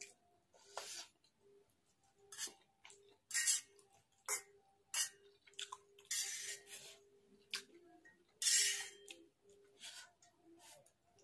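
Close-miked eating of noodles: slurping and chewing, with a fork clinking and scraping on a metal plate. It comes in short bursts every second or so, with longer, louder ones about six and eight and a half seconds in.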